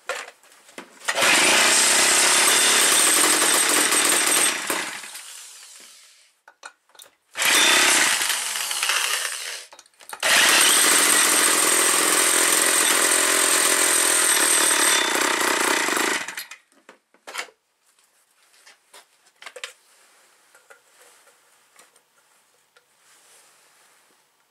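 Old McCulloch 250 two-stroke chainsaw firing up after sitting unused for 16 years. It runs loud and high three times for a few seconds each: the first run fades away, the second dies with its pitch falling, and the third runs about six seconds before cutting off suddenly. Faint clicks and handling noise follow.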